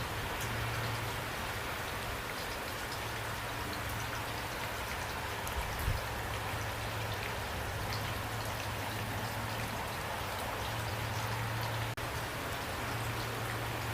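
Steady rain falling, a dense even hiss with scattered drop ticks over a low steady rumble, and a brief thump about six seconds in.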